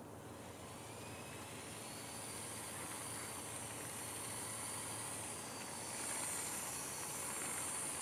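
Motorized Lego Technic RC car driving on asphalt: a high electric-motor whine with faint tones that shift in pitch, over a hiss. It grows louder as the car comes closer.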